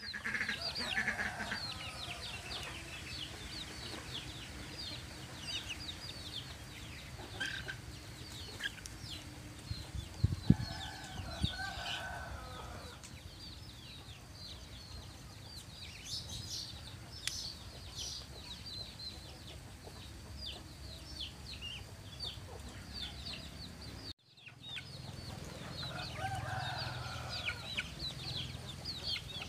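Free-range chickens clucking, over near-constant high, rapid chirping.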